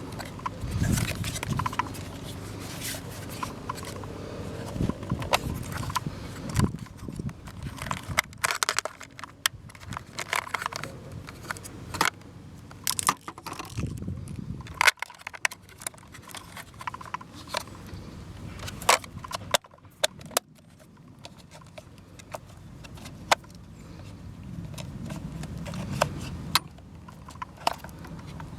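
Handling of a 70mai Air Compressor Lite portable tyre inflator as it is unfolded and readied: scattered plastic clicks, snaps and scraping, with the compressor not running.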